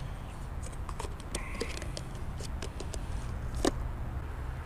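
Light handling noises: small scattered clicks and brief rustling as a plastic bait cup of dirt and fishing tackle are handled, with one sharper click near the end, over a low steady background hum.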